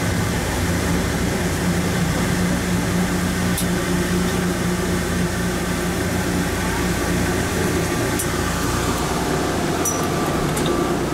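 Automated airport people-mover train running through a tunnel: a steady rumble with a low hum from the car. The hum drops away about nine seconds in, followed by a few sharp clicks.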